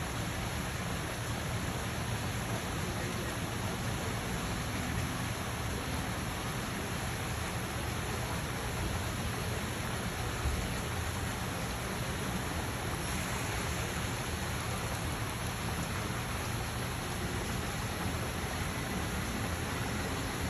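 A steady, even hiss, like rain or rushing water, with no distinct sounds standing out from it.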